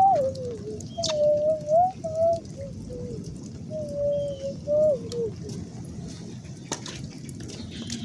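Low whistled notes, one after another for about five seconds, gliding up and down and ending on a falling note, over a steady rush of running water.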